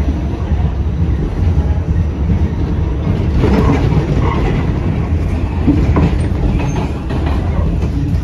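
R46 subway train running along the track, a loud steady low rumble with a few clacks of the wheels over rail joints.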